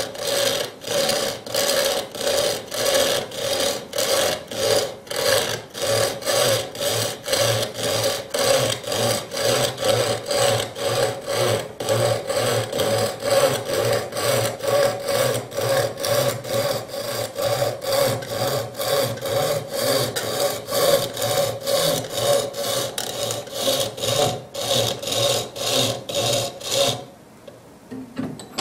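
Coping saw cutting through MDF board with steady back-and-forth strokes, a little over two a second. The sawing stops about a second and a half before the end.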